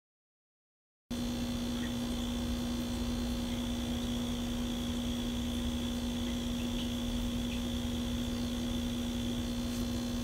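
Total silence for about the first second, then a steady electrical hum with one strong low tone over faint hiss, unchanging to the end.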